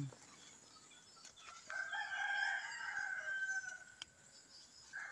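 A rooster crowing once: one long call of about two seconds starting a little before the middle. Another crow begins right at the end.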